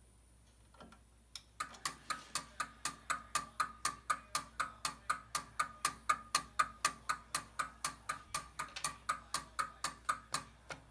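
Fire alarm signalling device sounding in fast, even pulses, about four a second, starting about a second and a half in and stopping just before the end.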